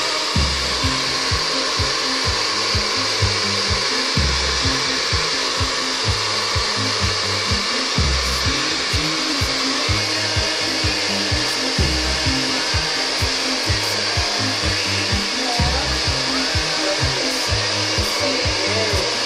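Hand-held hair dryer running steadily, blowing a wet Yorkshire terrier puppy's coat dry after its bath.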